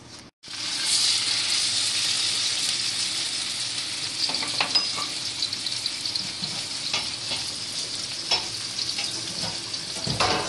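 Food sizzling steadily in hot oil in a pan, with a few light ticks, likely a utensil touching the pan.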